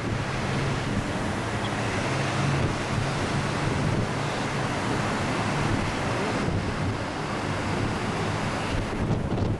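Wind rushing over the microphone on the open top deck of a moving sightseeing bus, with a low engine hum underneath that is strongest in the first few seconds.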